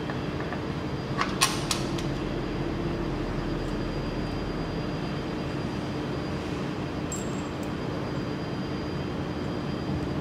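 Two sharp metallic clicks about a second and a half in as a round multi-pin metal cable connector is pushed onto its socket, over a steady machine hum.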